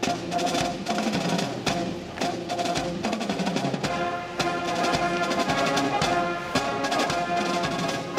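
Military band music with a steady marching drumbeat and brass, the held brass notes growing fuller about halfway through.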